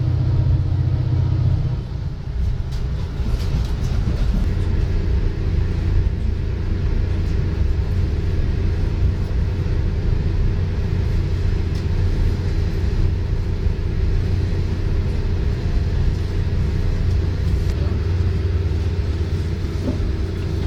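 Steady low rumble of a moving road vehicle, with a few steady hums over it.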